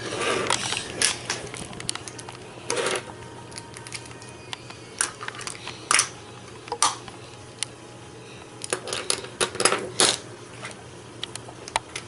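Plastic magnetic building tiles clicking and clacking against each other and the tabletop as a child picks them up and snaps them together, in irregular scattered clicks, busiest about nine to ten seconds in.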